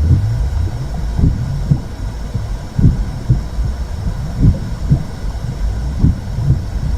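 Womb sound: a slow heartbeat, its low thumps coming in lub-dub pairs about every second and a half, over a steady low whooshing rumble.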